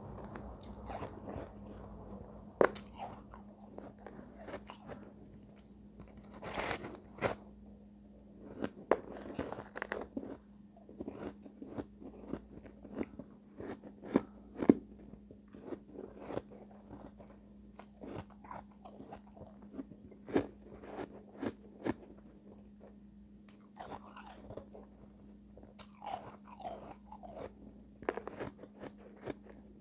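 Close-miked biting and chewing of refrozen shaved ice: irregular crisp crunches of varying loudness throughout, over a faint steady low hum.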